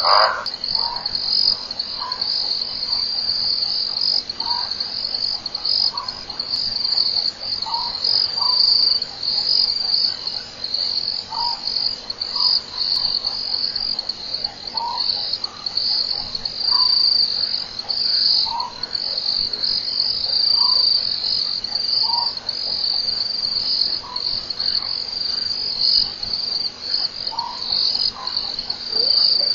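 Chorus of night insects trilling steadily at a high pitch, with short, faint lower calls every second or two.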